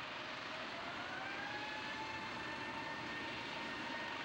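Airbus A380's four jet engines running as the airliner rolls along the runway: a steady jet rush with a whine that rises slightly in pitch from about half a second in.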